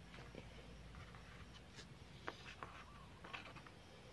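Near silence, with a few faint clicks and rustles as small chainsaw carburetor parts (gaskets, pump diaphragm and cover) are picked up and handled.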